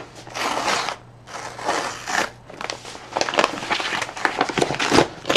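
Tear strip being ripped along a plastic courier satchel in two long pulls, then the plastic crinkling and crackling as the bag is pulled open.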